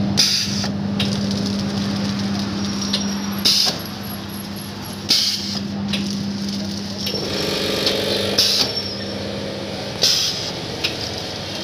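Automatic pneumatic pouch packing machine running: a steady motor hum with short, sharp hisses of air every one to three seconds as its pneumatic cylinders drive the sealing jaws.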